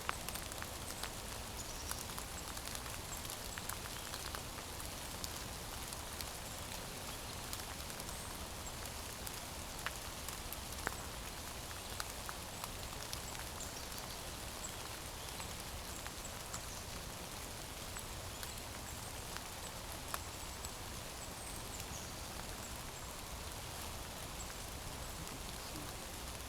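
Light steady rain falling on the woods, with scattered drops ticking sharply.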